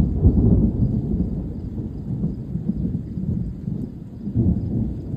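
Thunder: a sudden clap right at the start that rolls on as a long, low rumble, swelling again near the end.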